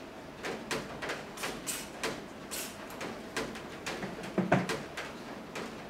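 A few short hisses of aerosol lubricant sprayed into an electric fan motor's bearing, among light clicks and knocks from handling the motor and spray can.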